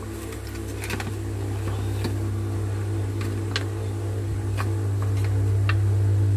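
A steady low electrical hum that grows louder over the last couple of seconds, with half a dozen light clicks from the plastic housing of a cordless drill being handled as it is opened and refitted around its motor.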